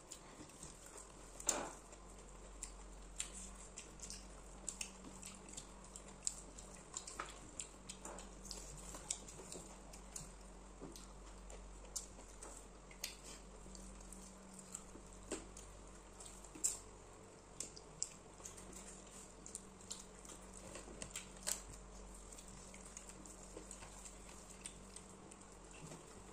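Quiet hand-eating sounds: scattered soft clicks and smacks of fingers working rice on plates and of chewing, over a faint steady low hum.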